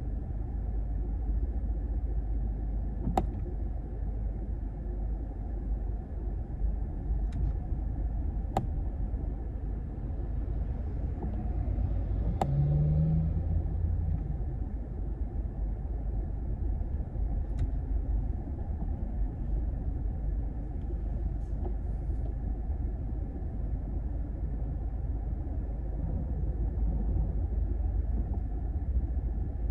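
Inside the cabin of a 2012 Toyota RAV4 on the move: a steady low rumble of road and engine noise. A few sharp clicks are scattered through it, and a brief low hum comes about halfway through.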